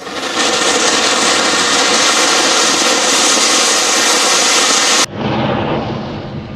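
Anar (flower-pot firework) spraying sparks with a loud, steady, jet-like hiss. It cuts off abruptly about five seconds in, leaving a duller rush that fades.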